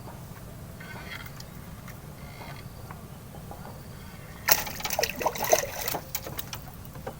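Water splashing and sloshing hard for about a second and a half, starting about four and a half seconds in, over a steady low background rumble.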